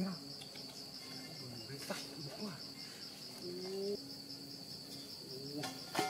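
Insects trilling steadily in a high, fast-pulsing buzz. Under it are faint low wavering calls, and there are two sharp snaps, about two seconds in and near the end.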